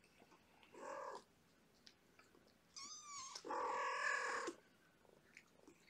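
Cat meowing: a short meow about a second in, a brief high chirp near the three-second mark, then a louder call lasting about a second.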